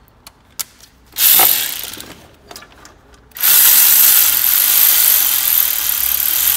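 Cordless electric ratchet running down a camshaft sprocket bolt: one short burst, then a steadier run of about three seconds, only taking up the thread rather than torquing the bolt.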